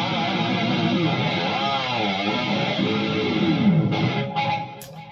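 ESP LTD F Black Metal electric guitar playing a lead line through a Line 6 Helix LT rig, with notes bent up and down. It stops about four seconds in, leaving a few string and handling clicks.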